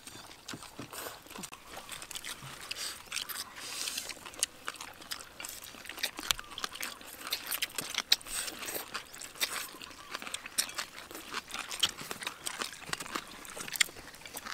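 Several people eating stir-fried noodles with chopsticks: chewing and slurping, with many irregular small clicks.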